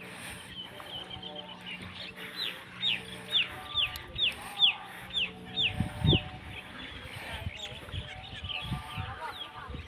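A bird calling: a run of about ten sharp, falling whistled notes, about two a second, that stops after about four seconds, followed by a low thump.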